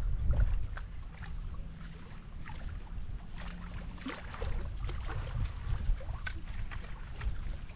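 Wind rumbling on the microphone, with scattered small clicks and ticks over it.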